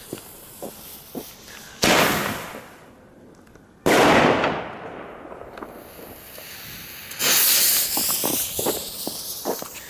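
Large firecrackers exploding outdoors: two loud bangs about two seconds apart, each with a long echoing tail, then a third, longer blast about seven seconds in that fades slowly, with small pops and crackles in between.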